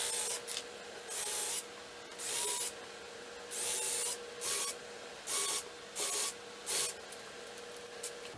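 Cordless drill pre-drilling pilot holes into old barn wood, run in about eight short trigger bursts, each a brief motor whine with the bit cutting.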